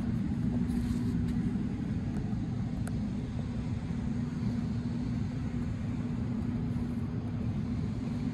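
Steady low mechanical drone: a constant hum over a rumble, unchanging throughout, with a few faint ticks.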